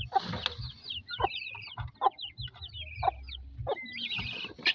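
Young chicks and guinea fowl keets peeping rapidly in short high downward-sliding notes, with a hen's short low cluck about once a second.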